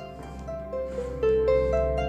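Background music: a gentle melody of plucked notes over a steady low bass.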